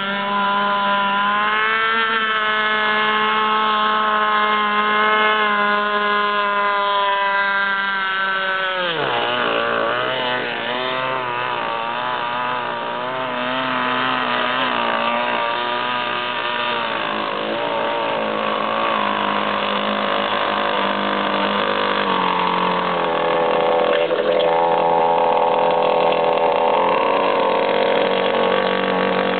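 Small two-stroke gasoline engine of a radio-controlled speedboat running at high revs with a steady high whine. The pitch drops sharply about nine seconds in, then wavers up and down as the throttle is worked. It settles into a lower, steadier tone near the end as the boat idles in close.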